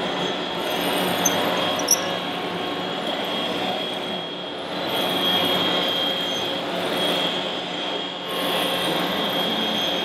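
Radio-controlled Caterpillar bulldozer model driving and pushing a blade load of soil, its electric drive whining steadily and rising and falling in waves. Two short sharp clicks come just before two seconds in.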